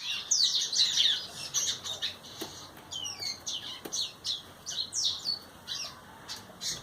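Caged songbirds singing: a quick, unbroken run of high sweeping whistled notes, loudest in the first second or so, with a couple of sharp clicks among them.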